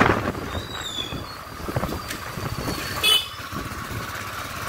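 Riding a motorized two-wheeler down a town street: steady engine and road noise, with a brief high-pitched tone about three seconds in.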